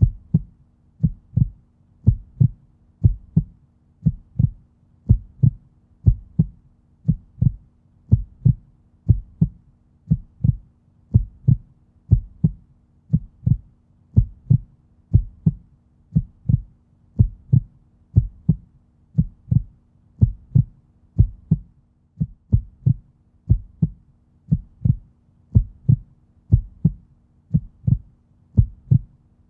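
Human heartbeat sound effect: a steady, even rhythm of paired low thumps (lub-dub), over a faint steady hum.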